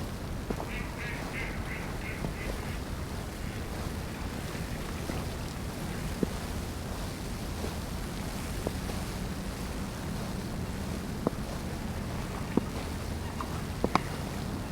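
Steady wind and low city rumble during a snowstorm. Near the start a bird gives a quick run of about six short calls, and a few sharp taps sound later on.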